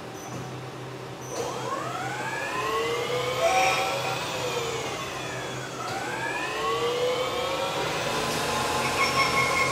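CNC lathe restarting its cycle on a bottom-bracket part: the spindle's whine rises in pitch about a second in, sinks again, then climbs a second time and holds steady near the end. Under it runs a hiss of coolant spray.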